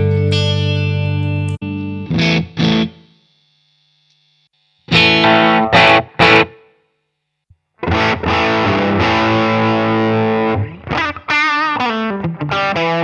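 Electric guitar played through a Line 6 HX Stomp on a distorted preset. A held chord and a few short stabs are broken by two brief silences, then sustained chords follow with wavering bent notes a little past the middle.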